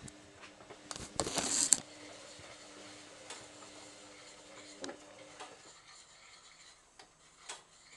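Fur of a shih tzu puppy rubbing and scratching against the camera microphone in a loud burst about a second in, over a faint steady hum that stops a little past halfway. A few soft clicks come after it.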